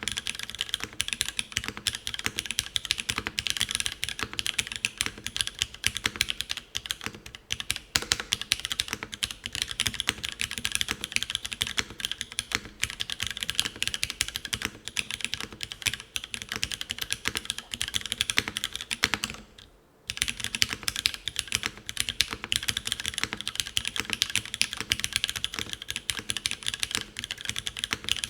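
Fast, continuous typing on a Karina 65 mechanical keyboard with Cherry Hyperglide Black linear switches, GMK keycaps, a full aluminium plate, tadpole mount and no foam dampening. It briefly pauses about twenty seconds in.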